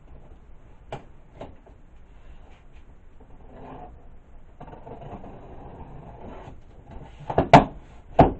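A cardboard box being opened and unpacked: a couple of light taps, then rustling of packing paper, then a few loud knocks of the box and its contents being handled near the end.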